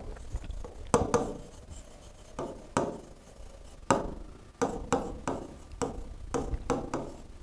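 Stylus tapping and clicking on the glass screen of an interactive display as words are handwritten on it: a string of short, sharp taps at uneven intervals, coming faster in the second half.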